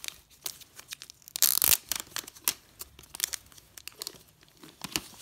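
Protective plastic film being peeled off the cylindrical body of an Amazon Echo speaker: crinkling and crackling, with a louder rip about one and a half seconds in.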